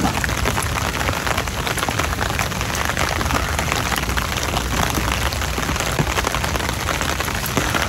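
Heavy rain falling steadily, the drops pattering densely on a clear plastic umbrella held overhead.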